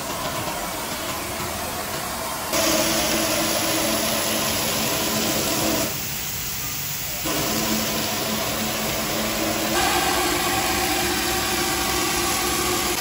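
A 5-axis CNC router's Hiteco spindle runs with a steady whine while its cutter mills through a block of foam, making a continuous hissing shred of chips. The level steps up and down a few times.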